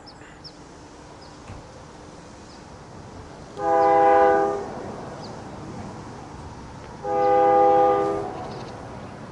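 Air horn of an approaching Union Pacific work train's locomotive sounding two loud blasts of a multi-note chord, about a second each, the first a little over three seconds in and the second near the end: the horn signal for a grade crossing, given as the crossing gates come down.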